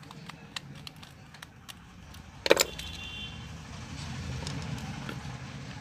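Light clicks and taps of a screwdriver working the screws out of a hair trimmer's casing, with one louder metallic clink about two and a half seconds in that rings briefly.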